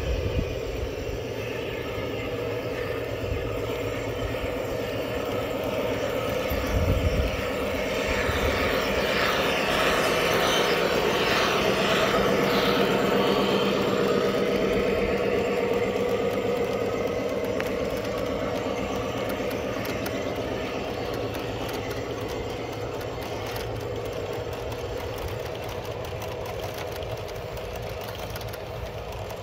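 G-scale model freight train rolling past on outdoor track: a steady hum from the locomotive's motors and the wheels of a long string of hopper cars running on the rails, growing louder as it passes close and then easing off. A brief low thump about seven seconds in.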